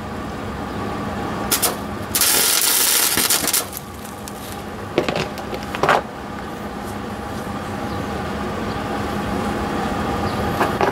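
Flux-core wire welder arc crackling and hissing for about a second and a half, starting about two seconds in, while tacking an exhaust to its hanger. A steady hum runs underneath, with a few short clicks before and after the weld.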